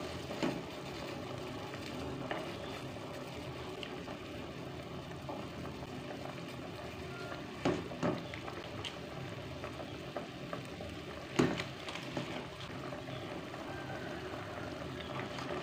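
Beef and bone soup boiling in a metal pot, a steady bubbling hiss, with a few short knocks of a metal spoon against the pot as it stirs, the clearest about eight seconds in and again about eleven seconds in.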